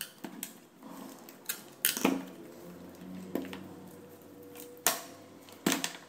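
Hands handling the opened ThinkPad R61i laptop's plastic chassis and small parts, giving a handful of sharp clicks and knocks. The loudest come about two seconds in and just before five seconds, with a short cluster near the end.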